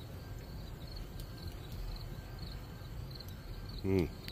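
Crickets chirping steadily, short repeated chirps a few times a second over a low background rumble, with a brief hummed voice falling in pitch near the end, the loudest moment.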